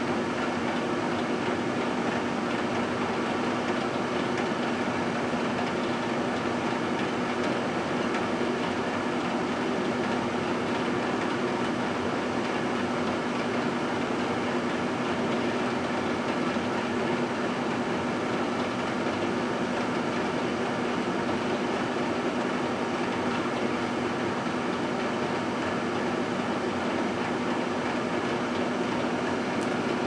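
Microwave oven running: a steady low hum over an even rush of noise.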